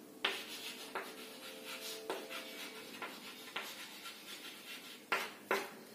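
Chalk writing on a chalkboard: a run of scratchy strokes and light taps as words are written out, with two sharper strokes about five seconds in.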